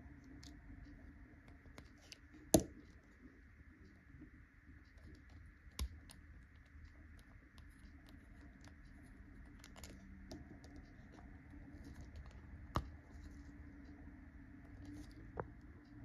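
Uni Kuru Toga mechanical pencil being handled and taken apart: scattered small clicks and ticks of its parts, with four sharper clicks, the loudest about two and a half seconds in.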